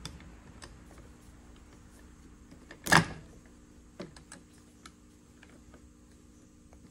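Light metallic clicks and one louder clunk about three seconds in, with a few more small knocks after it, as the brushes and end housing of an old GM starter motor are worked into place over the armature.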